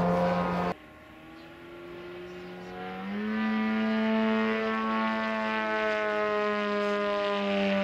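A large model aerobatic airplane's four-cylinder engine running, cut off abruptly under a second in. Then a steady droning tone with many overtones fades in. It steps up in pitch and loudness about three seconds in and holds.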